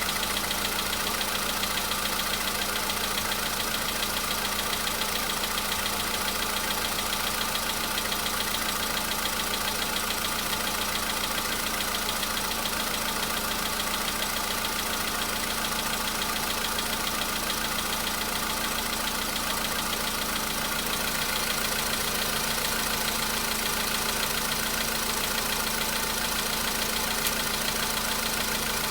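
Volkswagen Polo Sedan's 1.6 CFNA four-cylinder petrol engine idling steadily after a cold start, with a light tapping from the hydraulic lifters, typical of lifters that have not yet filled with oil on a cold engine.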